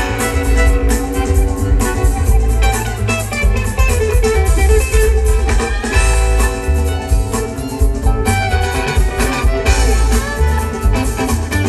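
Live band playing loud, with an electric guitar lead over upright bass and drums; a fiddle is bowing near the end.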